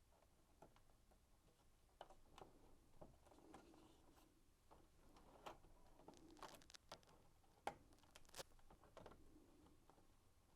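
Faint, scattered clicks and light handling noises of wire connectors being pushed onto the terminals of a tumble dryer control panel, with two sharper clicks about three quarters of the way through.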